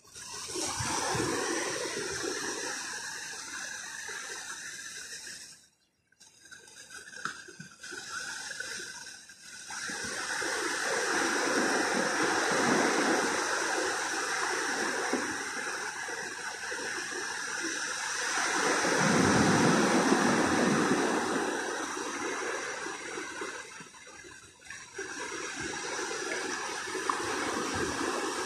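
Ocean surf: small waves breaking and washing up the shallow beach, swelling and fading in slow surges, with a brief drop-out about six seconds in.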